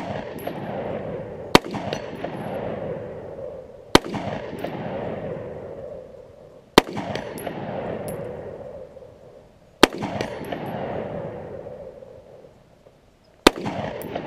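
Sig Sauer 516 Patrol, a gas-piston AR-15, firing five single aimed shots of .223 55-grain ammunition, two and a half to three and a half seconds apart. Each sharp report is followed by a long echo that fades over a couple of seconds.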